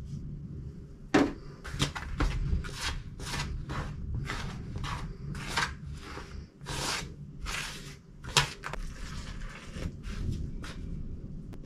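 A hand mixing chapati dough, flour and water, in a plastic basin: rhythmic rubbing and scraping strokes, about two a second, with a sharper knock about a second in and another about eight seconds in.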